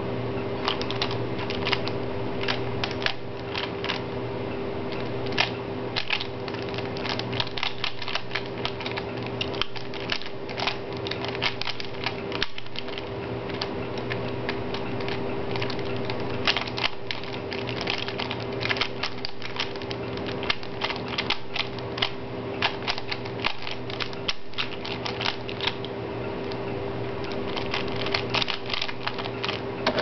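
3x3 Rubik's cube being turned at speed: a rapid, irregular clatter of plastic clicks as the layers snap round, broken by brief pauses, over a steady low hum.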